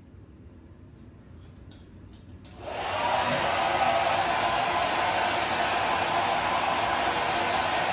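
A few faint clicks, then a handheld hair dryer switches on about two and a half seconds in and blows steadily.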